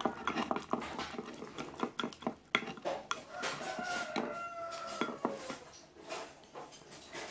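A utensil clacking and scraping against a mixing bowl while stirring glue and detergent activator as it thickens into slime. Many quick irregular knocks, and about halfway through a drawn-out pitched call sounds in the background for a couple of seconds.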